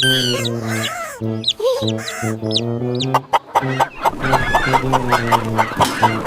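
Chicken clucking over a continuous background of steady, pitched tones.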